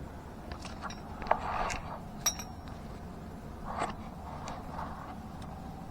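Small parts under a car being handled by hand: scattered light clicks, taps and scrapes, the sharpest click about two seconds in.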